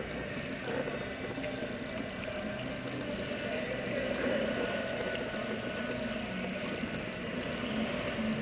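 Kayak paddle strokes, with faint splashing and water lapping at the plastic hull, over a steady hum of an indoor pool hall.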